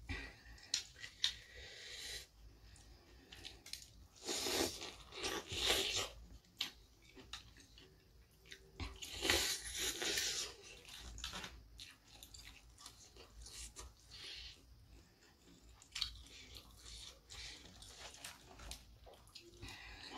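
Close-up eating sounds of crispy fried chicken being bitten and chewed: loud crunchy bites about four to six seconds in and again around nine to eleven seconds, with quieter chewing and small clicks between.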